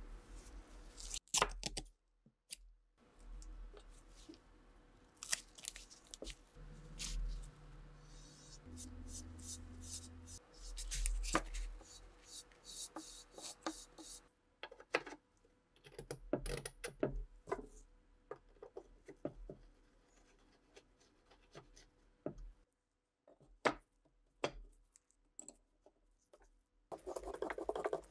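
Close-up handling sounds of refinishing a wooden rifle stock: brush strokes applying finish, with scattered light clicks and taps. Near the end a screwdriver works the screw of the steel buttplate.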